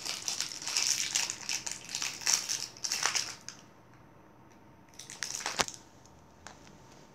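Plastic wrapping on an L.O.L. Surprise toy ball crinkling as it is peeled and handled, in bursts for about three and a half seconds, then again briefly about five seconds in.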